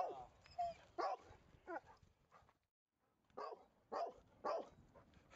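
A dog barking at a fence: a string of short, sharp barks about half a second apart, broken by a short pause near the middle.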